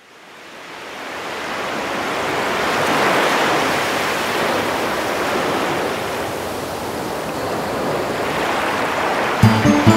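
Sea waves washing, a steady rushing surf that fades in over the first few seconds and swells gently. Music starts near the end.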